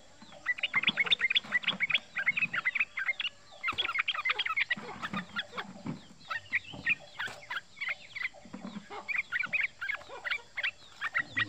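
Male yellow-vented bulbul calling in fast chattering runs of short, sharp notes, broken by brief pauses: the rapid rolling 'ropel' call.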